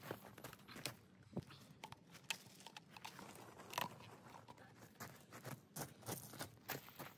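Faint, irregular clicks and crunching as plastic 90-degree elbow fittings are handled and pushed onto a pipe, with a few sharper knocks among them.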